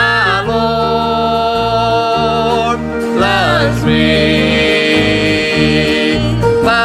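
A gospel song: singing with long held notes and vibrato over instrumental accompaniment with a steady bass line.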